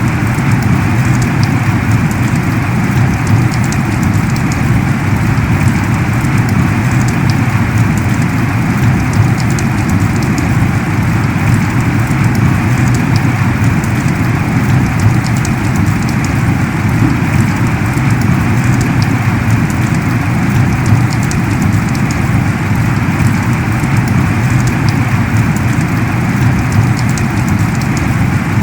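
Heavy rain pouring steadily, with faint sharp ticks of individual drops.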